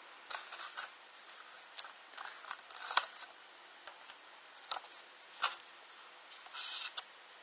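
A small cardboard box being opened by hand and its contents handled: scattered light clicks and taps with brief rustles, a sharper tap about three seconds in and a longer rustle near the end.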